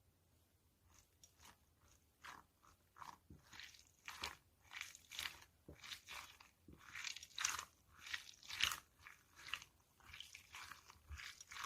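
Squishy toys being squeezed and pressed by hand, giving a run of many short, irregular clicks, thicker and louder in the second half.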